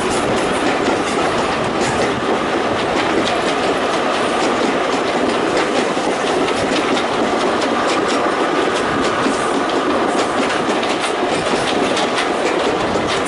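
Train running along the rails, with a steady rolling noise and wheels clicking over the rail joints, the clicks coming more plainly in the last few seconds.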